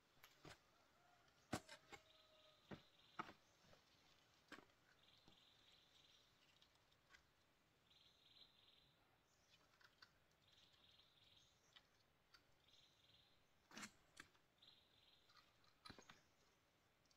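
Quiet, with scattered faint clicks and knocks from handling a net fence and its bamboo posts. A faint high buzzing call repeats every two to three seconds in the background.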